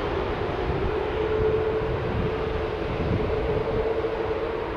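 Boeing 747-400 freighter's four jet engines at take-off thrust as it climbs away: a steady low rumble with a humming tone that strengthens about a second in.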